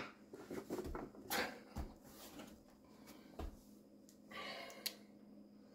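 Scattered light knocks and clunks of garbage-disposal mounting parts and hand tools being handled and set down on the floor of a sink base cabinet, with a short scrape a little past the middle.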